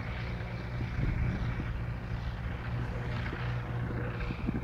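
BRM Aero Bristell B23-915's Rotax 915 iS engine and propeller running steadily at low taxi power, a low even drone.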